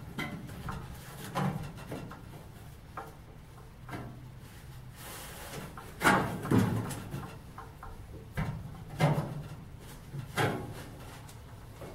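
A cut steel sheet-metal panel handled and test-fitted inside a VW Beetle body shell: irregular knocks and scrapes of thin sheet steel against the body, loudest about six and nine seconds in.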